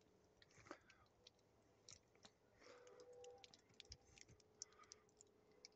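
Near silence with faint, irregular little clicks and ticks scattered throughout.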